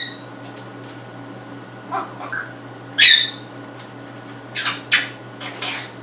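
African grey parrot making a string of short squawks and calls, the loudest about three seconds in, with shorter raspy calls near the end.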